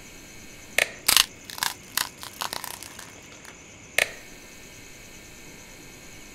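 Wall switchboard's light switches clicking: a few sharp clicks, then a quick run of smaller clicks, and one more sharp click about four seconds in.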